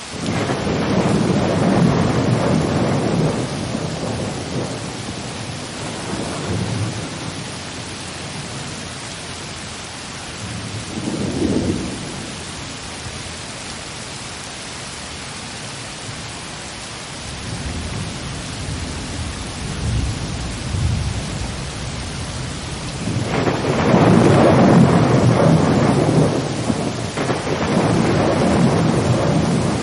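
Steady rain with rolling thunder. There is a long rumble near the start, a short one about a third of the way through, and the longest, loudest roll near the end.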